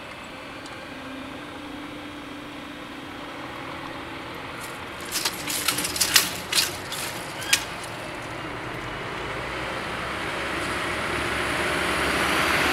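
Level-crossing barrier drives humming steadily as the booms rise, with a burst of sharp knocks about halfway through. Then cars approach and cross, their engine and tyre noise swelling louder toward the end.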